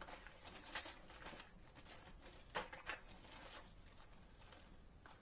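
Faint rustling and scattered clicks as fishing lures and their plastic packaging are handled.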